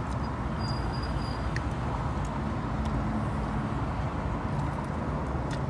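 Steady low vehicle rumble heard from inside a car, with a few faint clicks.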